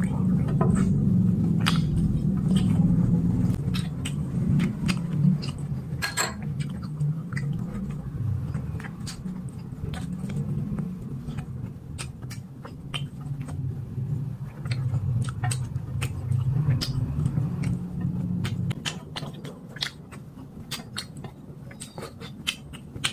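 A person chewing braised pork close to the microphone, with a steady low mouth rumble and many short sharp clicks and smacks scattered throughout.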